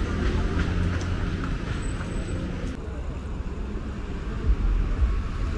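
Road traffic passing on a busy street: a steady rumble of vehicles, with wind buffeting the microphone near the end.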